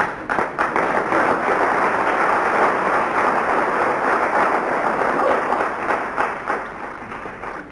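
Theatre audience applauding: dense clapping that starts suddenly and fades away near the end.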